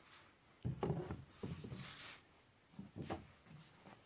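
A few short knocks and rubbing sounds of hard plastic tool parts being handled, with quiet gaps between them.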